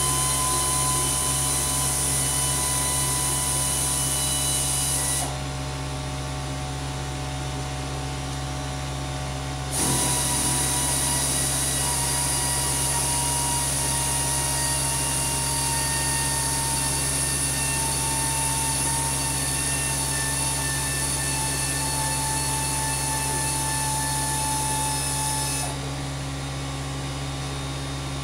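Steady machine hum and whine made of several held tones, with a high hiss that drops out about five seconds in, returns about five seconds later, and drops out again near the end.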